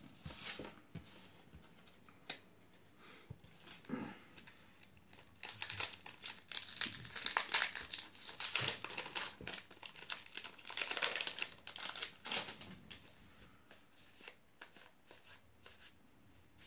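Foil Magic: The Gathering booster pack wrapper being torn open and crinkled by hand. The crinkling is thickest from about five to twelve seconds in, with scattered small taps and rustles of card handling before and after.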